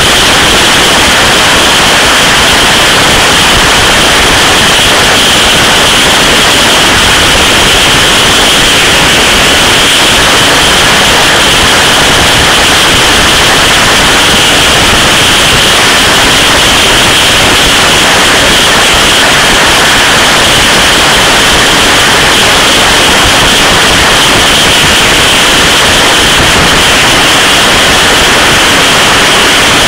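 Wind rushing over the microphone of a camera on a motorcycle at motorway speed: a loud, steady hiss with no engine note standing out.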